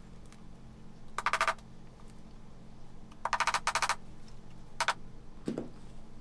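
Hammer tapping upholstery tacks into a car door card, in runs of quick light taps: a short run about a second in, a longer run about three seconds in, and a brief one near five seconds.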